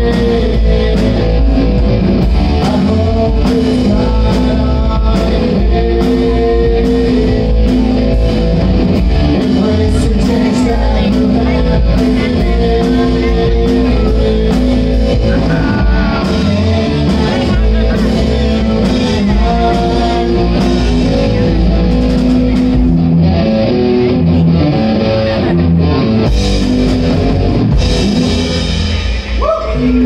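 Live rock band playing: electric guitar, bass guitar and a Ludwig drum kit with cymbal crashes, loud and continuous. The song ends near the end.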